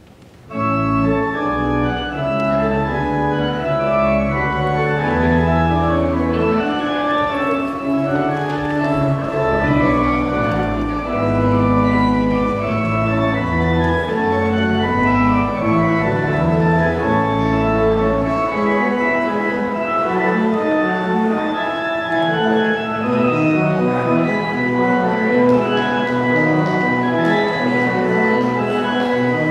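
Church organ playing the postlude at the close of the service, full sustained chords over deep pedal bass notes, starting about half a second in.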